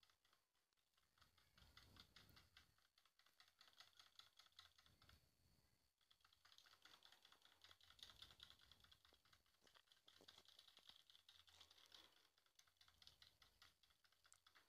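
Faint, rapid clicking of a wire whisk against a bowl as thick batter is stirred by hand, with a short pause about five seconds in.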